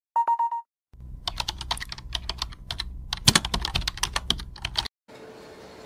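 Computer keyboard typing sound effect: a quick, uneven run of key clicks lasting about four seconds, opened by a brief stuttering electronic beep. A faint steady hum follows near the end.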